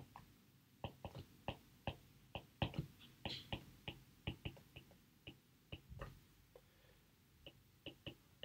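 Stylus tip tapping and clicking on a tablet's glass screen during handwriting: faint, irregular clicks about three a second, pausing briefly near the end.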